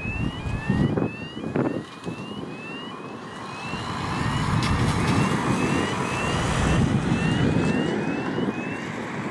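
Two A-10 Thunderbolt IIs' General Electric TF34 turbofan engines running up and rolling for a pair take-off: a rumbling jet noise, uneven at first, that grows louder and steadier about four seconds in. Over it a short high rising tone repeats about twice a second.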